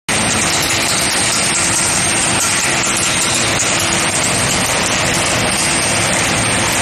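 Induction heating furnace running: a steady, loud mechanical noise with a thin, high, steady whine over it.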